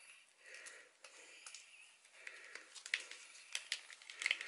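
A tube of tomato paste being squeezed out by hand: faint, scattered clicks and handling noise, a few sharper ticks in the second half.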